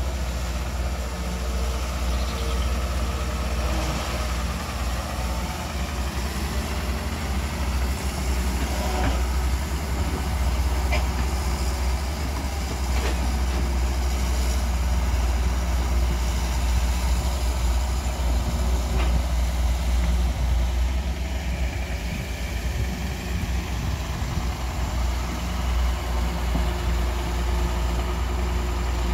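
Excavator diesel engine running steadily, with a few faint knocks scattered through.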